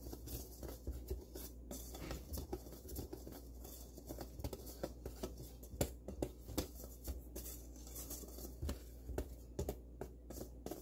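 Wire whisk stirring dry tapioca starch and rice flour in a stainless steel bowl: soft scratching with irregular light clicks of the wires against the metal, over a faint steady low hum.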